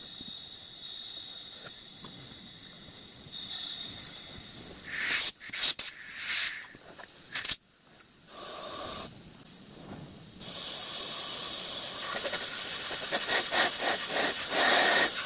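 Compressed air hissing out of the blower jet in a miniature live-steam locomotive's smokebox as the blower valve is opened: a few short loud bursts around the middle, then a steady, fluttering hiss held on in the last few seconds. The air test shows the newly fitted blower working.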